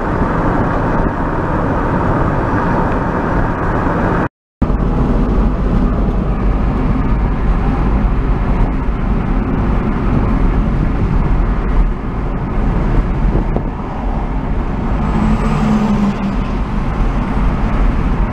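Steady car road noise heard from inside a moving car: engine and tyres rumbling. The sound cuts out completely for a split second about four seconds in, then comes back with a deeper low rumble.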